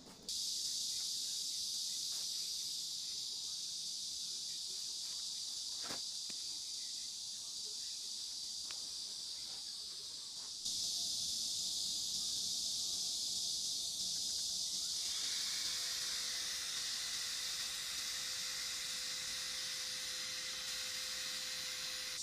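Steady high-pitched outdoor hiss, with a sudden jump in level about eleven seconds in. From about fifteen seconds a low steady hum and a broader hiss join it.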